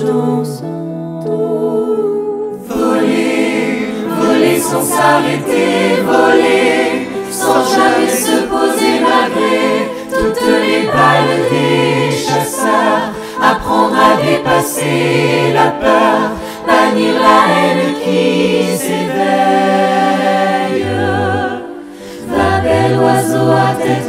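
Mixed choir of men's and women's voices singing in harmony. A few voices carry the first couple of seconds, then the full ensemble comes in. The sound thins briefly near the end before the full choir resumes.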